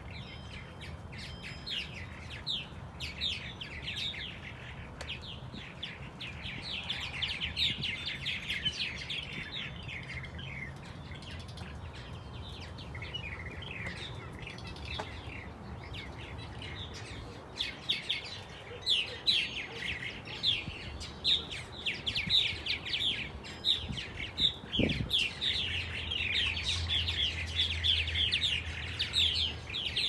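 Purple martins chattering from their gourd houses: a dense, continuous stream of quick chirps and warbles from many birds at once, growing louder and busier past the halfway point.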